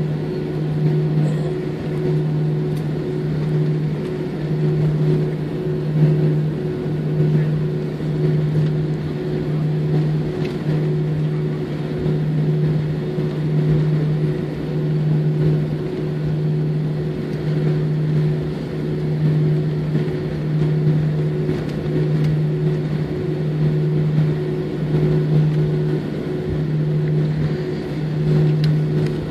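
Airbus A320 cabin noise on the ground after landing: a steady low drone that swells and fades about once a second, with a fainter higher tone above it.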